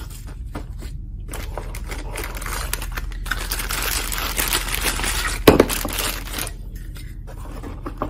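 Plastic packaging bags crinkling and rustling as parts are handled and pulled out of them, with many small crackles and one sharp knock a little past halfway.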